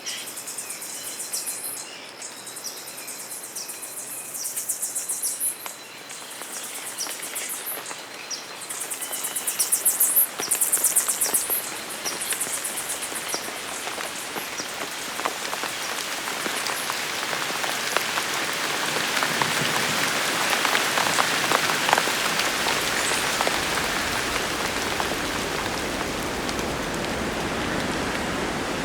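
Tropical rainforest ambience: a high insect chorus buzzing in pulses over the first dozen seconds, giving way to steady rain that builds up and then holds.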